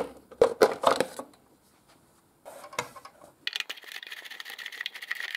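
A few sharp knocks as the plastic covers of a Stihl TS 420 cut-off saw are handled, then a screwdriver turning a screw out of the saw's belt guard: a fast, grating run of ticks lasting almost two seconds near the end.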